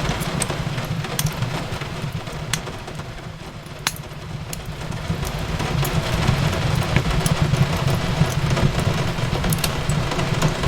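Fireplace crackling: scattered sharp pops and snaps over a steady low rumble, mixed with an even hiss of rain on a window. The bed dips a little about three seconds in, then swells back.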